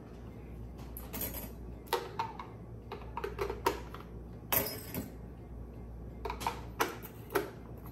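Scattered clicks and light knocks of an electric hand mixer being handled while its wire beaters are pushed into place; the motor is not running.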